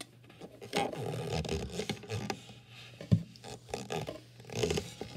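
Pencil scratching and rubbing across paper on a clipboard in short strokes while drawing, with one sharp knock about three seconds in.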